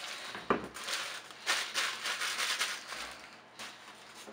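Plastic packaging crinkling and rustling in bursts as a piece of a PVC figure is unwrapped, with a single knock about half a second in.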